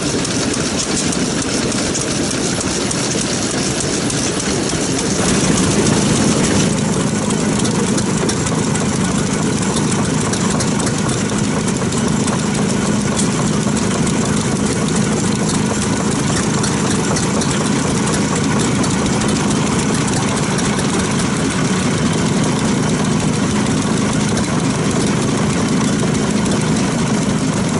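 Old Nagase diesel stationary farm engine running steadily. It gets louder about five seconds in and keeps running.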